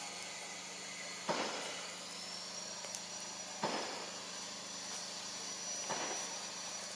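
Steady outdoor forest hiss, with a short sharp sound that comes back about every two seconds (three times) and a thin, high, steady tone coming in about two seconds in.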